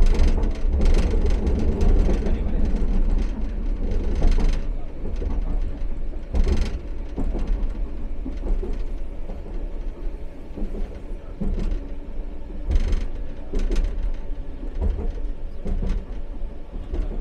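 Expo Line SkyTrain car running along the track: a steady low rumble from the wheels on the rails, broken by a few short sharp clacks.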